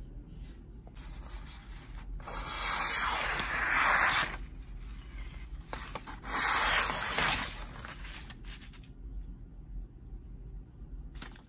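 MIL-TAC CS-1 fixed-blade knife, its S30V stainless blade never sharpened or stropped in seven years, slicing through a sheet of paper. There are two long papery hissing strokes, about two and six seconds in.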